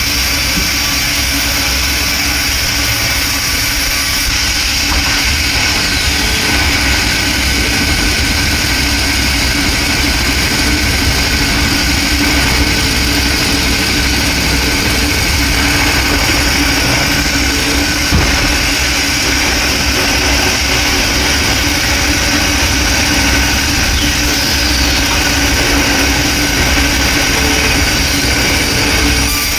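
Sawmill machinery running steadily: an engine-driven drone with a high, even hiss over it, unchanged throughout.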